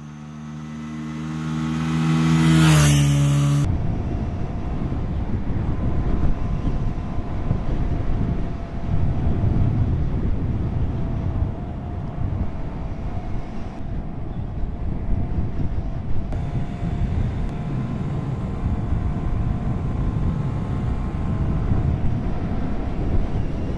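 Honda Grom's single-cylinder engine as the bike rides up and passes close by, its note dropping sharply in pitch as it goes past about three seconds in. Then the engine runs steadily under a loud rush of wind as the bike is ridden along the road.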